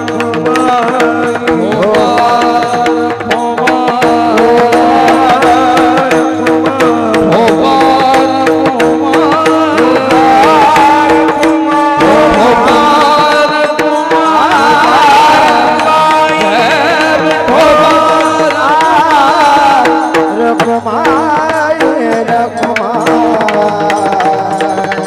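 Marathi Warkari kirtan music: a devotional tune sung over a hand drum played in a steady rhythm, with a held drone underneath.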